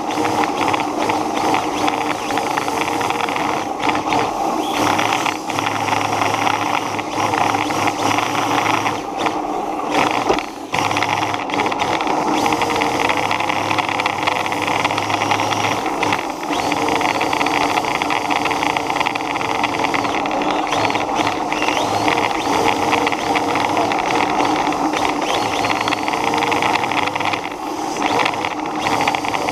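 Radio-controlled car running, heard from a camera mounted on it: a steady motor and drivetrain whine with a rattle, loud and even, dipping briefly about ten seconds in.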